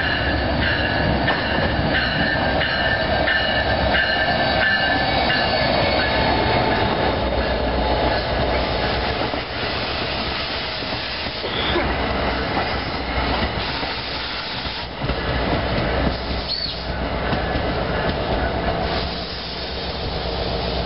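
New Jersey Transit double-deck multilevel passenger train passing close at speed: steady wheel-and-rail rumble with repeated clacks over the rail joints, and a high wheel squeal through the first several seconds.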